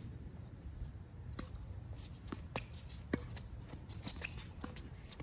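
Tennis rally on a hard court: a string of sharp racket-on-ball hits and ball bounces, the loudest about three seconds in, over a low steady background rumble.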